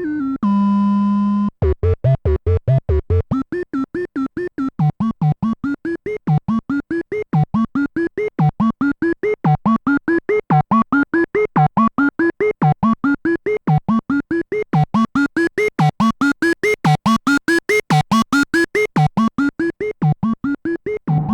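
Arturia MiniBrute 2 analog synthesizer playing a fast sequence of short staccato notes, about four a second, each sliding in pitch, in repeating rising runs. A few held notes stepping in pitch come first, and the tone grows brighter for a few seconds past the middle as the filter opens.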